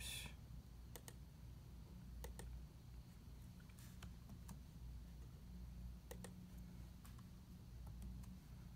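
Faint, scattered clicks of a laptop keyboard being typed on, some in quick pairs, over a low steady hum.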